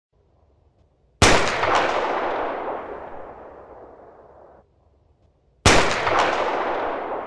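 Two gunshots, about four and a half seconds apart, each a sharp crack followed by a long echo that rolls on and fades over about three seconds.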